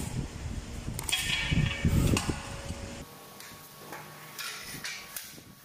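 Irregular scraping and knocking from tile-laying hand work. About three seconds in it drops abruptly to a quieter stretch with a faint steady hum and a few short scrapes.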